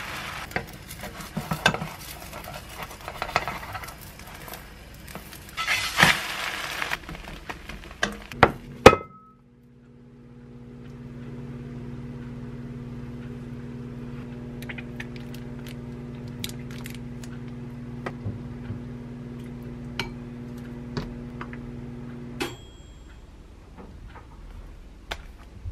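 Home cooking sounds: beaten egg cooking in a frying pan with light utensil clinks, ending in a few loud sharp knocks about nine seconds in. Then a knife cuts a thin egg sheet on a wooden cutting board with scattered taps over a steady background hum that stops with a click, and near the end a wooden spoon clinks in a glass bowl as a sauce is mixed.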